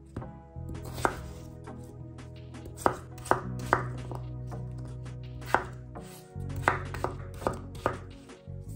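Kitchen knife chopping peeled raw potatoes into cubes on a wooden cutting board. About nine sharp, uneven knocks as the blade goes through and strikes the board.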